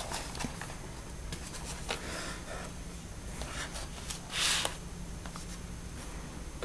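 Wooden colored pencils and their cardboard box being handled: light scattered clicks and rustles, with one louder brief scrape about four and a half seconds in.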